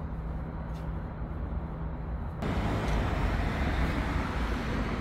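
A low steady hum, then about two and a half seconds in a sudden switch to louder outdoor background noise of road traffic.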